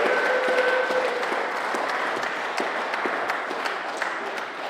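Audience applauding, the clapping slowly dying away. A brief held tone sounds in the first second.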